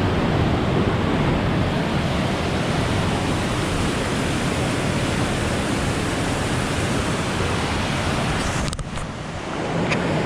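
Steady rushing noise of a waterfall. Near the end it dips briefly and a few clicks sound.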